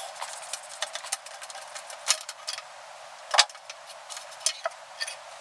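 Irregular light clicks and clacks of a road-bike handlebar and stem being worked loose and lifted off the full-carbon fork's steerer tube, with one sharper knock about three and a half seconds in.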